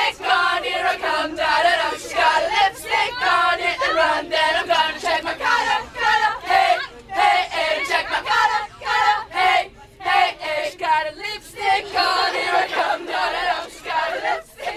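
A group of people singing together without accompaniment, many of the voices high, in a loose group chorus.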